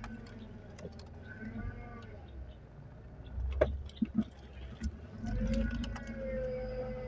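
Inside a BMW car moving slowly: low engine and road rumble, a few sharp knocks a little past the middle, and a drawn-out whine that bends in pitch as the steering wheel is turned hand over hand near the end.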